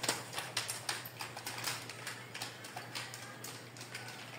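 Marker strokes on a whiteboard: a quick, irregular run of small taps and scratches as the marker tip is drawn across the board.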